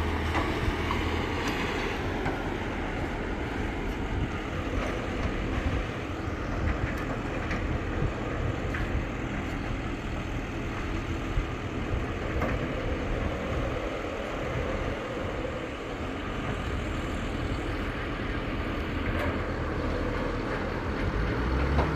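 Heavy diesel demolition excavator running steadily, a low engine hum, with a few faint knocks from the demolition work.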